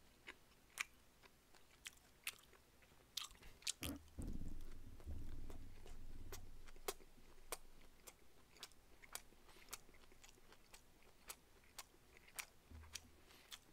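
A person chewing a whiteleg shrimp nigiri close to the microphone: faint, scattered mouth clicks and smacks, with a low muffled rumble of chewing about four seconds in that lasts a few seconds.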